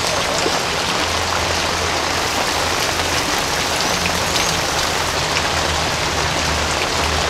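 Heavy rain pouring steadily, a dense even hiss of rain on the ground and on standing floodwater, with a low hum underneath that grows stronger at times.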